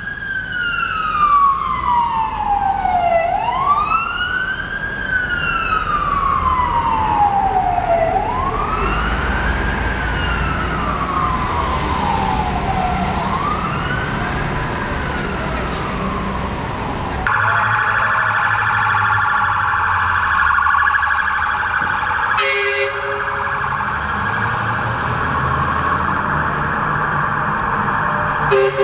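Fire service vehicle sirens. First comes a wail that rises quickly and falls slowly every four to five seconds, growing fainter. About 17 seconds in it changes abruptly to a fast yelp siren, with short blasts of a low two-tone air horn about 22 seconds in and again at the end.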